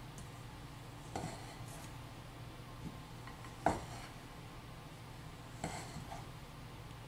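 A spoon knocking against a glass mixing bowl while stiff marshmallow fondant is worked with powdered sugar. There are three sharp knocks about two seconds apart, the loudest in the middle, over a low steady hum.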